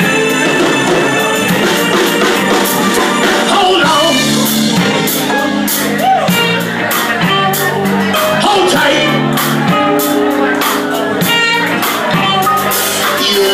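Soul band playing an instrumental passage: drum kit keeping a steady beat under guitar and keyboard.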